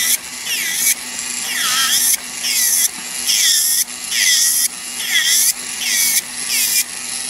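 Electric nail drill with a cylinder bit running, a steady motor hum under a gritty grinding as the bit is worked over a fingernail near the cuticle. The grinding comes in repeated passes, about one a second, its pitch shifting as the bit bears on the nail.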